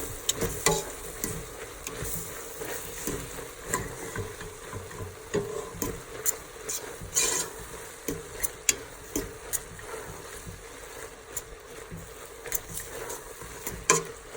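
Plant-based ground meat frying in oil in a pot with a steady sizzle, while a utensil stirs it, scraping and clicking irregularly against the pot.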